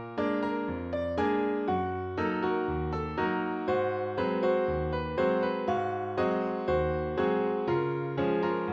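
Background music: electric piano playing a steady, even run of notes, about two a second.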